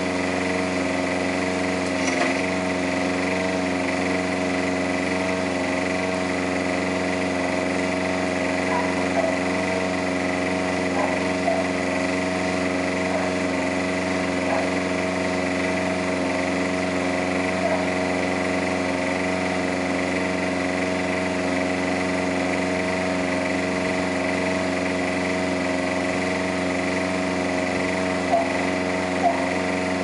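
Small lawn mower engine running steadily at a constant speed without load, with a few light ticks near the end.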